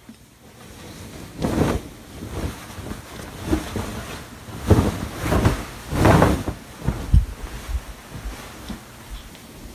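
Duvet and bedding rustling as the bedcover is dragged and shifted over the bed: a run of irregular swishes, loudest about halfway through, then settling to softer rustles near the end.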